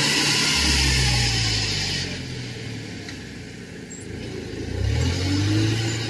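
Engine of rice-harvest machinery running under load. It is loud for the first two seconds, its pitch dropping a little early on, then eases off and quietens, and revs up again about five seconds in.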